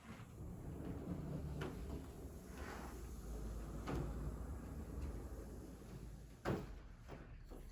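A few knocks and thuds from things being handled, like a cupboard or door opening and closing, over a low rumble. The loudest knock comes about six and a half seconds in.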